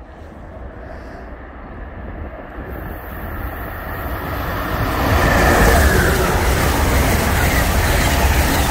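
Amtrak passenger train approaching and then passing at speed. The rush of the train grows steadily louder and is at full strength about five seconds in as the cars go by.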